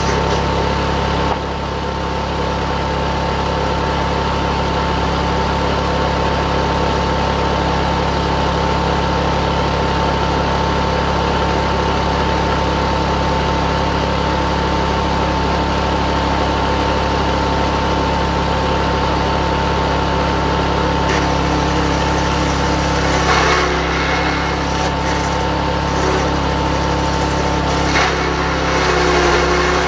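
Engine of a log-sawing machine running steadily, with a few brief knocks in the second half.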